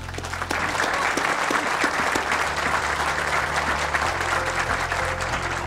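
Audience applauding, many hands clapping together, starting about half a second in and holding steady.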